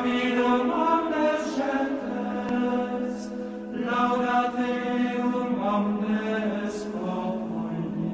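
Chanted vocal music for an intro: voices singing long held notes that step to a new pitch every second or two, over a steady low drone.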